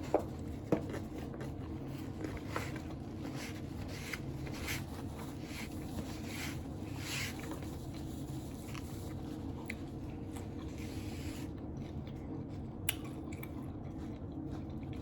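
Close-up eating of a taco: bites and chewing with scattered crunches, heavier in the first half, over a steady low hum.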